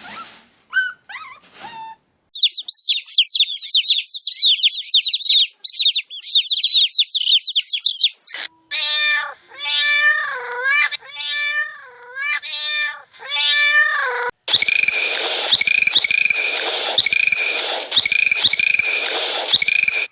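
A string of separate animal-call clips cut one after another: rapid high chirping, then several groups of pitched, wavering calls, then a short high call repeated about twice a second over a steady hiss. The calls are cat- and bird-like, but the species are not named.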